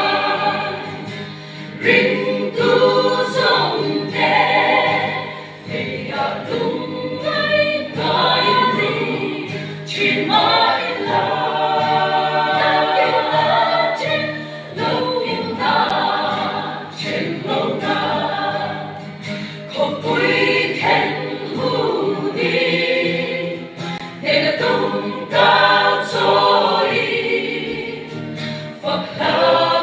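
Mixed church choir of women's and men's voices singing a gospel hymn together under a conductor, in continuous phrases with swells and dips in loudness.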